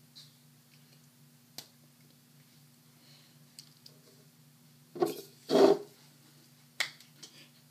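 A woman's two short, breathy bursts of laughter about five seconds in, with a few light clicks or taps around them over a faint steady hum.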